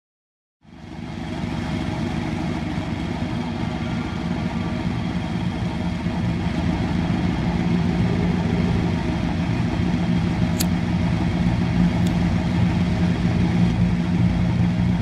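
A car engine idling steadily, coming in under a second in, with two faint high ticks near the end.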